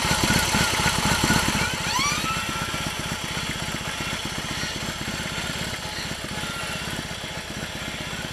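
BMW R18's 1802cc air-cooled boxer twin idling with a steady low pulse just after starting, growing slowly fainter as the bike backs away.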